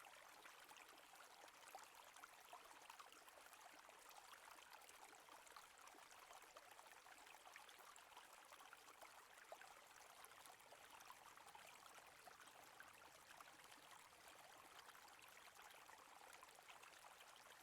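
Faint running water of a flowing stream, a steady, even trickling.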